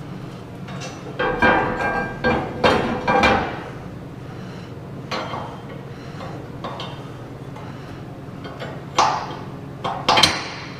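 Steel parts being knocked and set into place: a series of sharp metal clanks that ring briefly, several close together in the first few seconds and a few more near the end, over a steady low hum.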